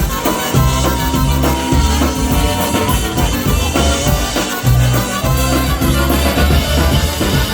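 Live polka band playing an instrumental passage between sung verses, with bass and drums keeping a steady beat under the lead instruments.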